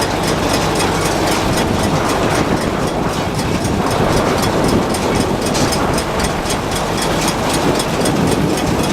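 A heavy engine runs steadily at a constant speed, with a fast, even clicking of about five ticks a second over it.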